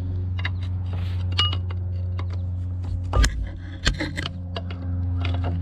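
A steady low hum with scattered sharp clinks and knocks; the loudest knocks come about three and four seconds in.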